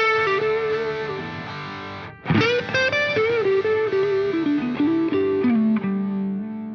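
Background music: a distorted electric guitar playing a sliding lead melody, ending on a long held note that fades.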